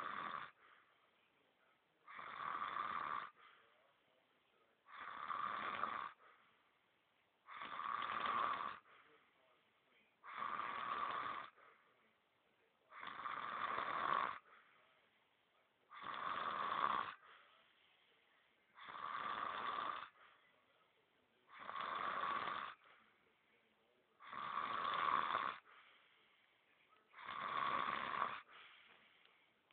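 A man snoring heavily in deep sleep, one rasping snore about every three seconds in a steady, even rhythm.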